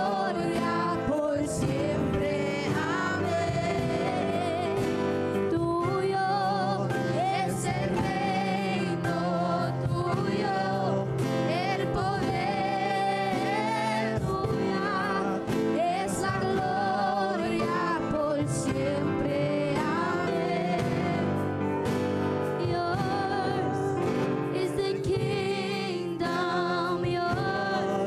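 Gospel worship song: voices singing long, wavering held notes over steady instrumental accompaniment.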